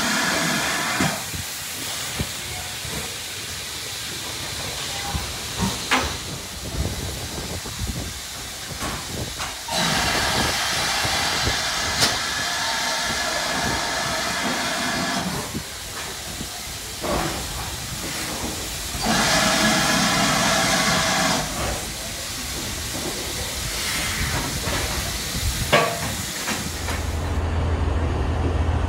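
Steam tank locomotive hissing, steam blowing off in bursts of a few seconds, with a few sharp metallic clanks between them. Near the end it gives way to the low hum inside a moving train.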